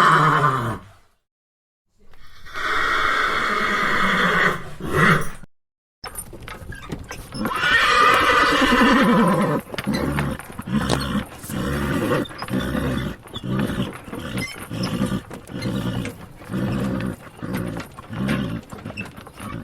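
Horses neighing in a string of separate recordings. One neigh tails off just at the start, another follows after a second of silence, and a long whinny falling in pitch comes around eight seconds in. After that there is a run of short repeated horse sounds, about one a second.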